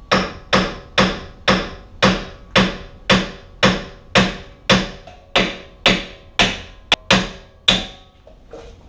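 A hammer striking the steering knuckle to shock loose a stuck tapered tie rod end: about fifteen evenly spaced metal blows, roughly two a second, each with a short ring.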